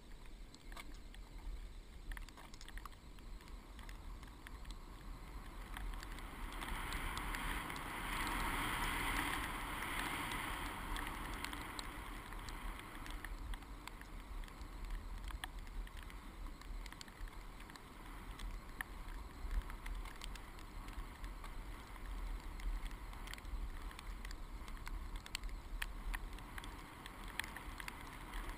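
Skis sliding over snow, with wind rushing over a helmet-mounted GoPro Hero2 camera. The hiss swells for several seconds about a quarter of the way in, with scattered small clicks throughout.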